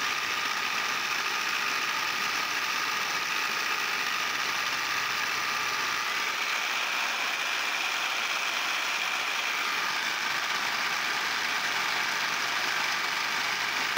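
Electric saw running steadily at medium speed, used as a paint shaker to shake a paint jar clamped in a bar clamp on its blade, with a faint steady whine over an even buzz. The footage is sped up fourfold.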